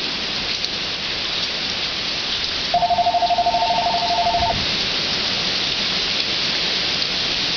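Phone ringing: one rapidly pulsing two-tone ring lasting under two seconds, about three seconds in, over the steady hiss of heavy rain.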